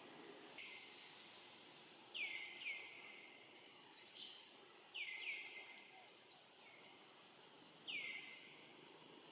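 A bird calling with short notes that slide sharply down in pitch: a quick pair about two seconds in, another pair about five seconds in, and a single note near the end. Faint high chirps and ticks of other birds or insects come in between.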